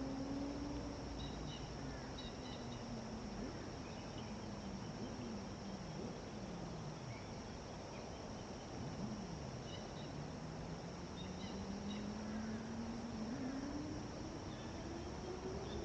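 Outdoor ambience: a steady high insect trill with a few faint bird chirps, over a low distant engine hum that slowly drops and then rises in pitch.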